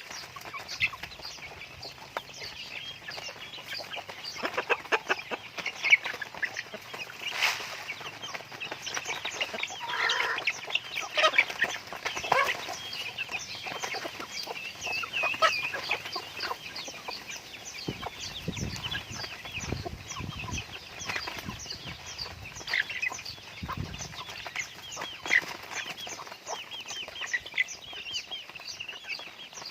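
Flock of chickens clucking and chirping, with many short calls overlapping one another without pause.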